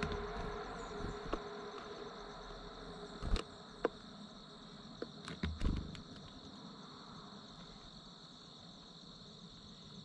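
Steady high-pitched chorus of crickets outdoors, with a few sharp clicks and knocks in the first six seconds.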